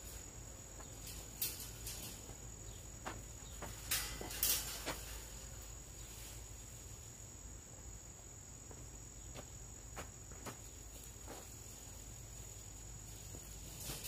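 Steady high-pitched insect trill, like crickets, running without a break, with scattered sharp clicks and knocks, the loudest about four to five seconds in.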